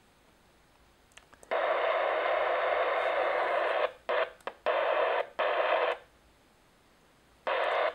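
Risiton UV-ONE handheld transceiver's speaker hissing with receiver static as the radio scans. There is one long burst of about two seconds, then three short bursts and a last one near the end, each cut off sharply as the squelch closes.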